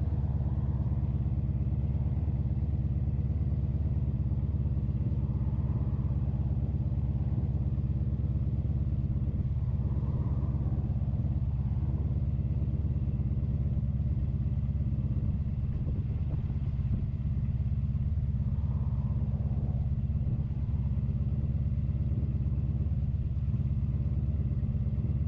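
1983 Honda Sabre's V4 engine running at a steady, unchanging speed, with wind buffeting the microphone in a heavy low rumble.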